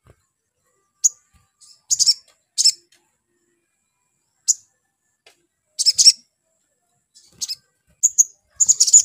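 Male olive-backed sunbird giving short, sharp, high chip calls every second or so, then breaking into a rapid twittering song near the end.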